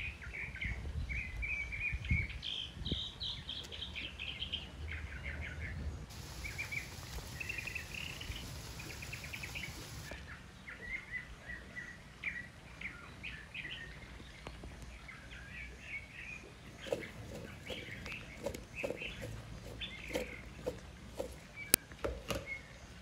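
Small songbirds chirping and twittering repeatedly, with a low rumble under them in the first few seconds. From about three-quarters of the way in come a series of sharp clicks and knocks.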